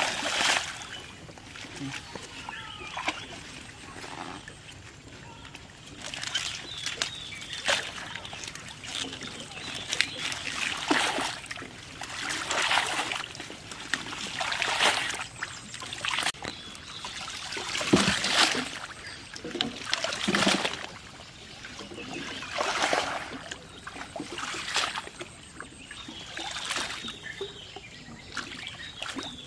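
Water splashing and sloshing in repeated surges, one every two seconds or so, as the water is worked by hand or foot.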